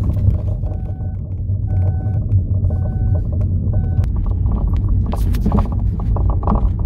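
Ford Focus II driving, heard inside the cabin: steady low road rumble, with a run of short knocks from the rear suspension starting about halfway through. The knocking comes from a worn rear shock absorber top mount.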